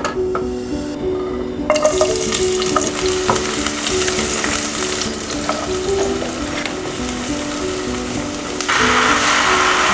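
Beef being stir-fried in a pan, sizzling, with occasional clicks of stirring. The sizzle starts about two seconds in and grows louder near the end.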